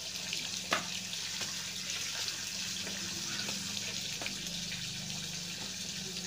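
Steady hissing background noise with a low hum under it and scattered light clicks, one sharper click about a second in.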